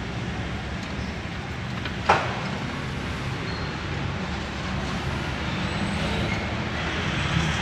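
Steady low vehicle rumble, with one sharp knock about two seconds in as screwdriver work on the lower dashboard trim goes on.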